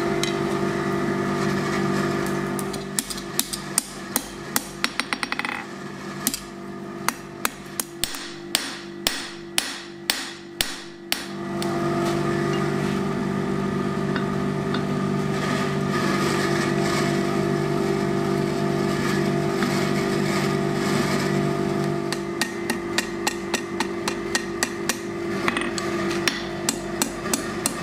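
Hand hammer striking red-hot steel tong reins on an anvil to draw them thinner: runs of sharp blows, about two or three a second, from about three to eleven seconds in and again from about twenty-two seconds on. Between the runs, a steady low machine hum plays at the start and again from about eleven to twenty-two seconds.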